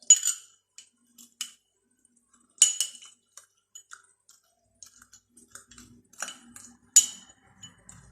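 A spoon stirring liquid, clinking against the side of its container: a handful of irregular sharp, ringing clinks, loudest about three seconds in and near the end.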